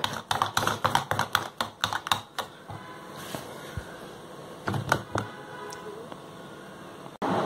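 Wire whisk beating thick waffle batter in a stainless steel bowl: rapid clicking of the wires against the bowl for about two seconds. A few more clicks follow about five seconds in.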